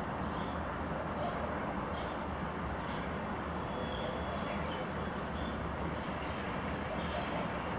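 Outdoor ambience: a steady low rumble of distant traffic, with short high bird chirps scattered throughout.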